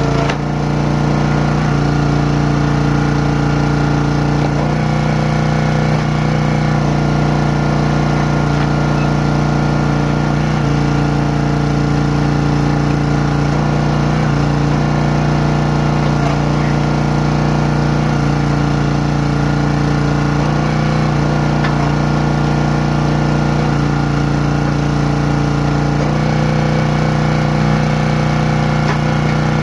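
Champion 27-ton log splitter's small single-cylinder gas engine running steadily, its tone shifting every few seconds as the hydraulic ram is worked to split logs.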